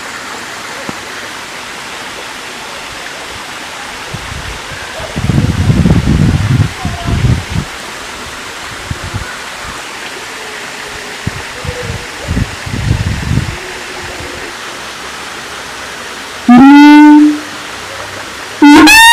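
Siamang calling: low booming notes from the inflated throat sac in two spells, about five and twelve seconds in, then two short, loud pitched whoops near the end, all over a steady hiss.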